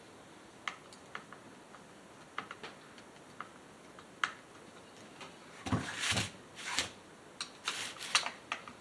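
Small parts and tools being handled while reassembling a chainsaw: scattered light clicks and taps, then a busier spell of louder clattering and rustling a little past halfway.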